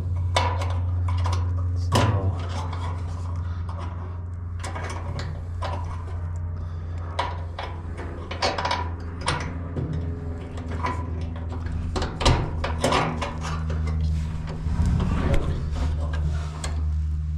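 Dryer parts being handled and fitted by hand: scattered clicks, knocks and metal-on-metal rubbing over a steady low hum, as the belt idler spring area is worked on.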